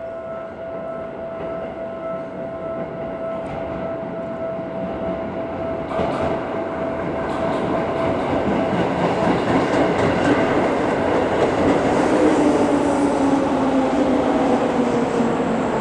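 Seibu 4000-series electric train pulling into the platform. Its rumble and wheel clicks grow louder from about six seconds in, and its motor whine falls slowly in pitch as it brakes. A steady high tone sounds before the train arrives and stops about six seconds in.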